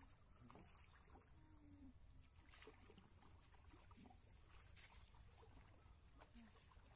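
Near silence: faint outdoor ambience with a low rumble and a few faint ticks.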